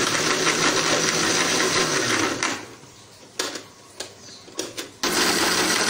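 Electric mixer grinder running and blending milk with almonds, dates and sugar for a shake. About two seconds in it is switched off and winds down, a few short bursts follow, and it runs steadily again about five seconds in.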